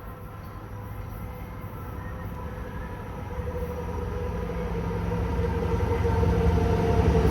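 A Long Island Rail Road train approaching, growing steadily louder, with a low rumble and a steady hum.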